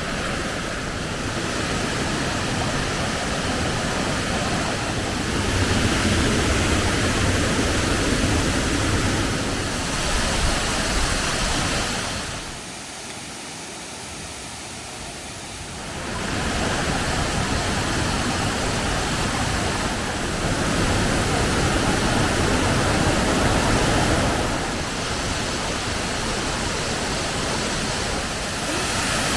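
Waterfall water rushing in a steady roar, heard in several separate takes, with a much quieter stretch of water sound about halfway through.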